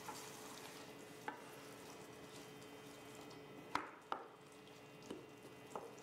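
Wooden spoon stirring chickpeas and tomato sauce in a stainless steel pan over a faint simmer, with about five light knocks of the spoon against the pan, the clearest two a little before and after four seconds in.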